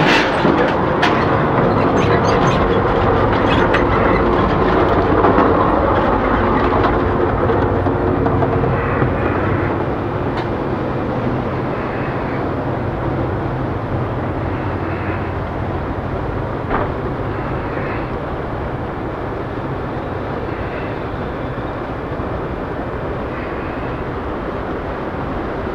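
Moving passenger train heard from inside, rumbling with some rattling clicks. It is loudest for the first several seconds in the gangway between cars, then settles to a steadier, quieter rumble inside the coach.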